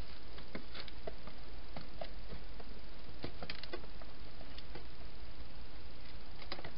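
Wild hedgehog moving about a plastic feeding box at the food bowls, making scattered small clicks and rustles, bunched about three and a half seconds in and again near the end, over a steady hiss and low hum.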